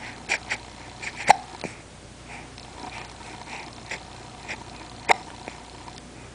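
Hiccups: two sharp, loud hiccups about four seconds apart, one about a second in and one near the end, with softer short breathy sounds between them.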